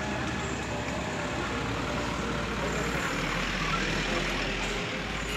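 Engine of an ambulance utility vehicle running as it drives slowly past, over the chatter of a crowd.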